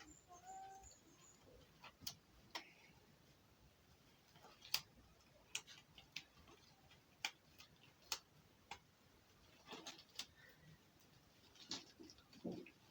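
Near silence broken by about a dozen light, irregular clicks and taps, the sound of small items being handled and set down.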